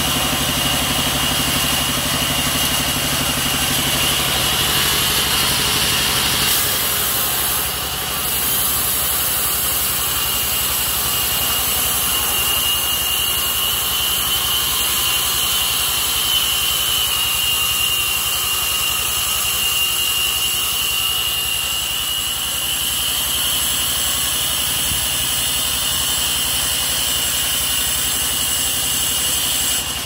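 Band sawmill running while its blade rips lengthwise through a long teak beam: a steady machine drone with a constant high whine, dipping briefly about eight seconds in.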